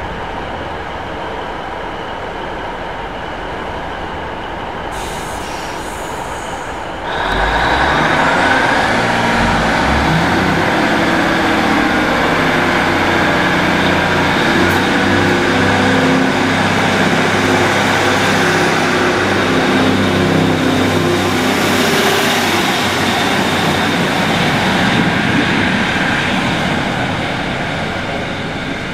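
Class 150 Sprinter diesel multiple unit's underfloor Cummins diesel engines idling at a platform, with a brief hiss about five seconds in. About seven seconds in the engines open up as the train pulls away, running loud and steady with a rising whine, then fading near the end as the train draws off.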